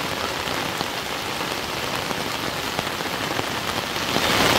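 Steady rain falling, an even, unbroken patter.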